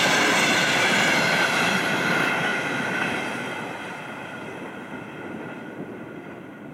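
Regional passenger train running past over the rails, wheel noise with a high steady whine in it, loud at first and then fading steadily from about two seconds in as the last coach moves away.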